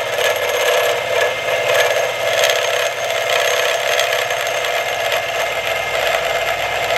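Milling machine with a 16 mm end mill cutting a 1 mm deep step along an extruded aluminium bracket, running steadily, the spindle and motor sound mixed with the hiss of the cutter in the aluminium.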